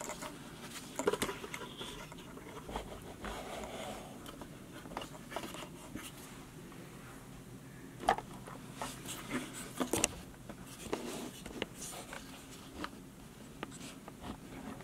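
Handling noise of a camera being moved and set down: scattered light knocks, clicks and rustles over faint room noise, with the clearest knocks about a second in, around eight seconds and around ten seconds.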